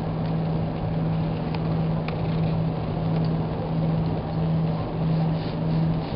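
Cabin noise inside an Airbus A340-300 taxiing: its CFM56 engines running at low taxi power, a steady low hum over a constant rush.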